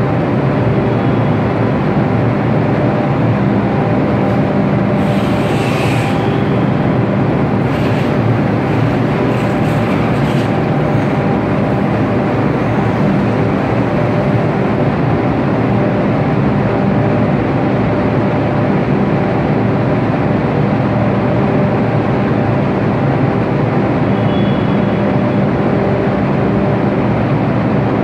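Steady, loud drone of a ship's enclosed car deck, its machinery and ventilation humming evenly with a constant low hum, and a few brief faint higher sounds about five to ten seconds in.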